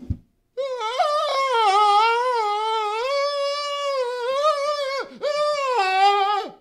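A short low thump, then a man's long, high-pitched scream that wavers in pitch for about four seconds, breaks off briefly, and picks up again in a shorter second scream.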